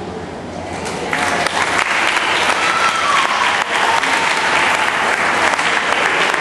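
Audience applauding, swelling up about a second in and holding steady, with some voices mixed in.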